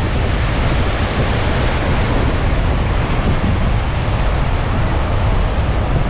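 Black Sea surf washing in under a strong wind, with wind buffeting the microphone in a steady low rumble.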